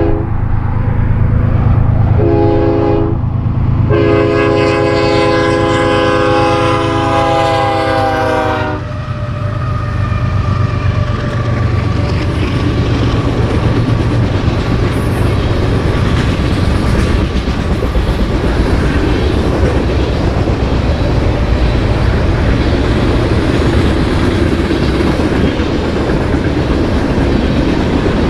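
Freight train locomotive air horn sounding three blasts for the crossing, the last one long, about five seconds. The train then rolls past with a steady low rumble and the clickety-clack of freight car wheels over the rail joints.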